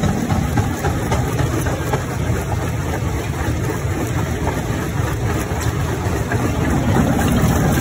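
Jaw crusher running with a steady low rumble while the rock in its chamber is crushed and sinks between the jaws, with faint scattered cracks and knocks of breaking stone.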